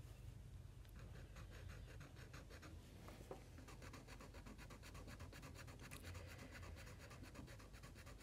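Faint scratching of a Weiye fineliner pen's fine tip on notebook paper: quick, repeated colouring strokes, starting about a second in.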